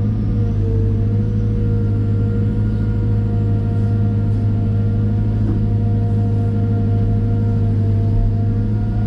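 Cat M313D wheeled excavator's diesel engine running steadily under a loud low drone, with a held, slightly wavering whine above it.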